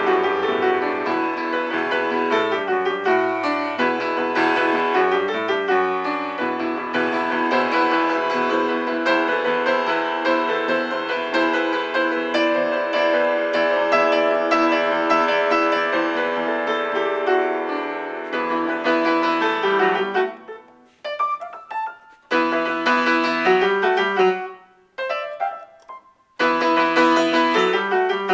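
Solo piano improvisation: thickly layered notes ringing on together for most of the time, then, after about twenty seconds, short separate chords with brief silences between them.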